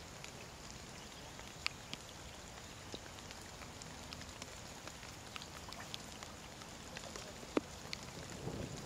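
Light rain: scattered raindrops tapping on the Garmin VIRB 360 camera housing at irregular intervals over a soft steady hiss, with one sharper tap about two-thirds of the way through.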